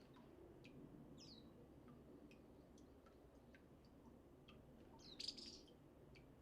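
Small wild birds calling faintly: scattered short, high chirps, some sliding down in pitch, with a louder, harsher burst about five seconds in.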